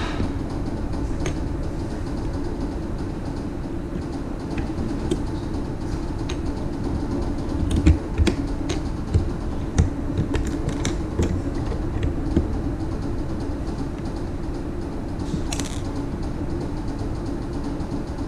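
Plastic Lego bricks clicking and knocking together as pieces are handled and pressed on, in scattered taps that come thickest about halfway through, over a steady hum.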